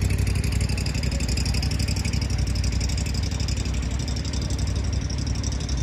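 An engine idling steadily, a low, even rumble with a fast, regular pulse.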